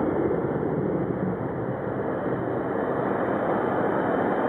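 Twin-engine jet airliner climbing out after takeoff, its engines making a steady roar that swells slowly in loudness.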